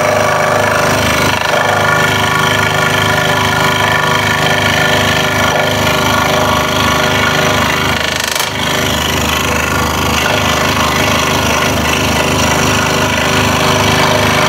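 Scroll saw running steadily, its fine blade going rapidly up and down as it cuts a thin wooden puzzle piece, with a fast, even chatter and a brief dip about eight seconds in.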